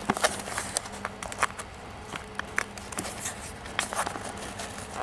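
Cardboard toy box being handled: scattered irregular taps, clicks and scrapes of fingers and plastic against cardboard as the toy truck is worked free of its packaging.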